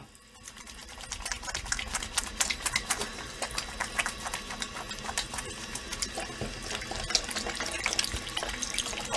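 Water running from a tap as hands are washed under it, with irregular splashing; it builds up over about the first second.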